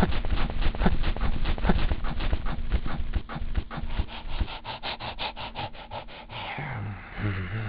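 Rapid, even rubbing strokes, about seven a second, growing fainter after about six seconds as a low hum comes in.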